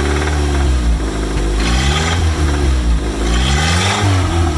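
Honda Civic single-cam four-cylinder engine idling, then revved up and let fall back twice. A quiet knock is still heard just after the rod bearings were replaced.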